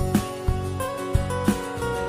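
Instrumental background music with a steady beat, about three beats a second, under held pitched notes.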